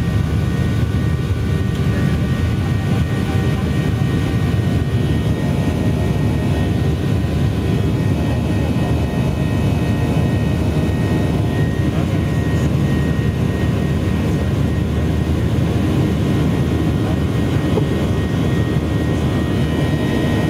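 Steady cabin noise of a Boeing 737-800 climbing out after takeoff, heard from inside the cabin: the CFM56-7B engines' low, even rumble with a faint steady whine above it.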